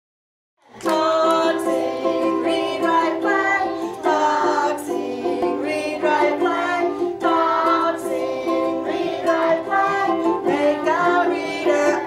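Intro music with plucked strings under a moving melody, starting just under a second in.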